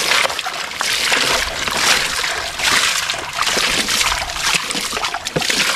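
Water splashed repeatedly by hand over a plastic toy dump truck, sloshing and splattering as it washes wet sand out of the truck's bed.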